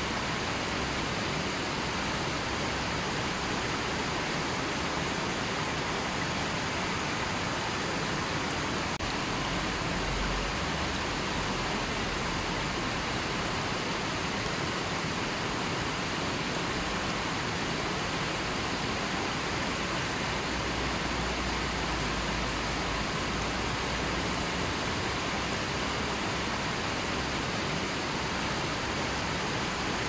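A shallow river flowing over boulders and stones: a steady, unbroken rush of water.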